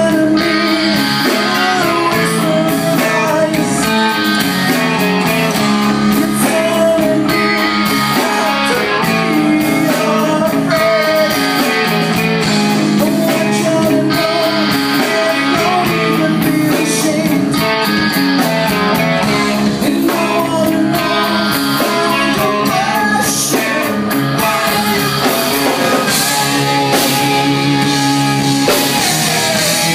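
Live band playing loud: electric guitar and drum kit, with a man singing into a handheld microphone.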